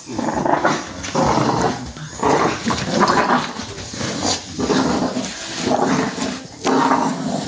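Bulldog puppies growling in short, rough bursts, about one a second. These are play growls during a tug-of-war over a toy.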